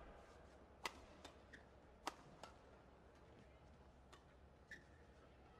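Badminton rackets striking the shuttlecock in a doubles rally: a string of sharp, short hits, the two loudest about one and two seconds in, with lighter hits after them.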